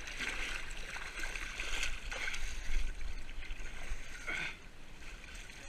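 Water splashing and sloshing, with a low rumble of wind and handling noise on a wet action camera's microphone.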